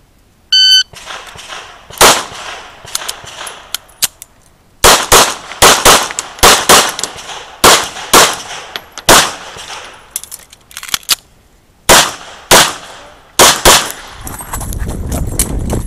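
Electronic shot-timer beep about half a second in, then 9mm pistol fire from a CZ75 SP-01 in quick strings of shots. The strings are separated by pauses of a second or more as the shooter moves between targets. A low rumble comes in near the end.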